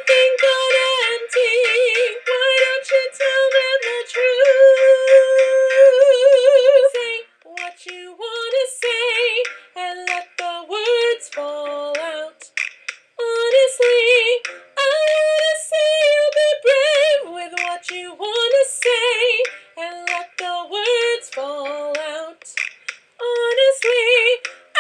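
A woman's voice singing a melody with wide vibrato, long held notes for the first several seconds, then shorter phrases broken by brief pauses.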